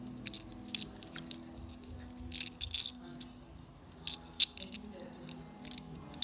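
Scattered light clicks and small rattles from a die-cast metal toy train engine being handled and turned over in the fingers, with a few sharper clicks near the middle, over a steady low background hum.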